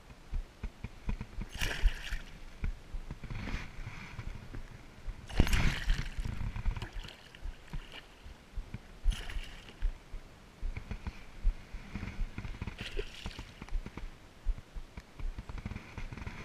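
Hooked pike thrashing and splashing at the water's surface beside a float tube, in about six bursts of splashing a few seconds apart, the loudest about five and a half seconds in. Low knocks and rumble run underneath.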